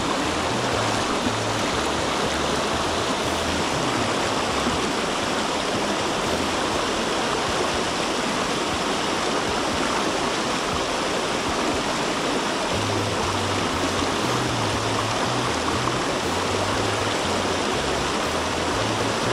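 Shallow mountain stream rushing over rocks in a riffle: a steady, unbroken wash of water noise, heard close to the water.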